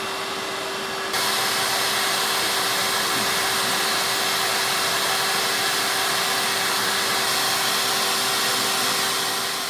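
Vacuum source of a CNC vacuum hold-down table running, a steady rushing air noise with a constant hum, holding the shirt flat on the table. It gets louder about a second in.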